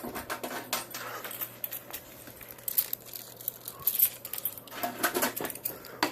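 Irregular light clicks and rattles of small hardware being handled, over a faint steady low hum.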